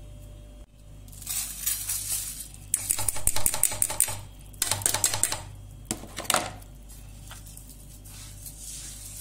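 Damp sesame seeds poured from a plastic strainer into a frying pan, pattering and rustling in a few bursts, then a metal spoon scraping and clicking through them as they are spread out.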